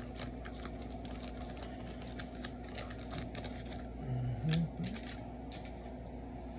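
1990 Fleer basketball trading cards and their packs being handled and flicked through, a run of small irregular clicks and rustles.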